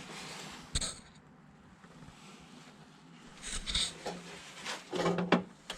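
A few light metallic clinks and knocks as a steel repair patch is handled and set into place, with a sharp click about a second in and a louder clatter near the end.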